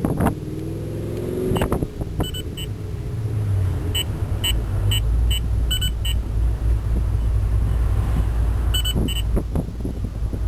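Steady low rumble with a scatter of short, high electronic beeps, about a dozen of them between two and nine seconds in.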